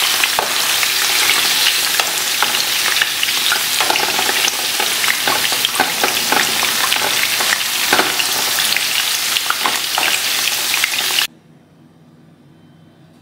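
Sawi (mustard greens) sizzling as they are stir-fried in a nonstick frying pan, with a wooden spatula scraping and clicking against the pan. The sizzling cuts off suddenly near the end, leaving quiet room tone with a faint steady hum.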